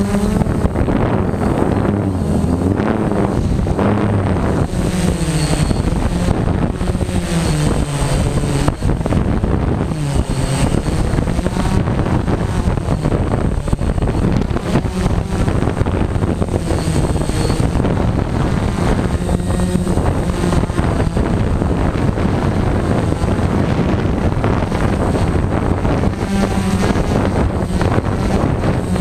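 Multirotor drone's electric motors and propellers whirring, the pitch sliding up and down again and again as the throttle changes while it descends.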